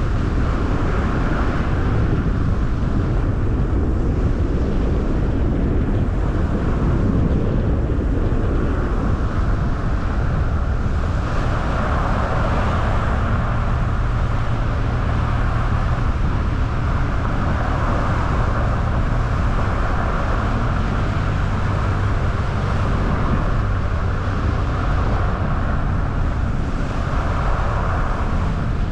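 Car driving at a steady speed: a constant rumble of tyres on the road and engine, with wind noise over it that swells and eases every few seconds.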